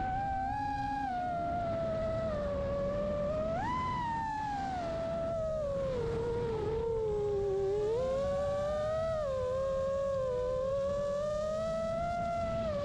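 Brushless motors and propellers of a 5-inch FPV quadcopter whining, the pitch rising and falling with the throttle: a sharp climb about four seconds in and a dip a little after the middle. Under it is a steady low rumble of wind on the microphone.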